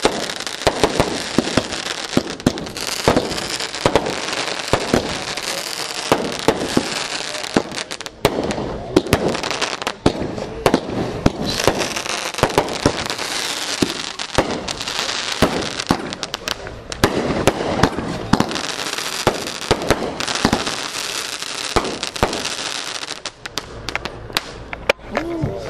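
"Welcome Home" consumer aerial firework cake firing shot after shot. Launches and star bursts come as many sharp reports over a steady dense crackle, easing slightly near the end.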